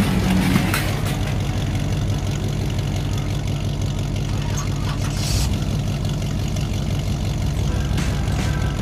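A steady low engine-like drone, with a few light clicks and rattles over it.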